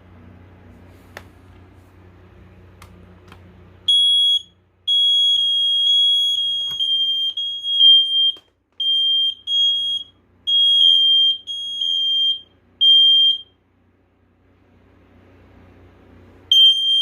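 First Alert smoke alarms' piezo horns sounding, a loud shrill beeping near 3 kHz that starts about four seconds in. It comes in uneven, overlapping beeps, stops for a few seconds, then starts again near the end. A few faint clicks come before the alarm starts.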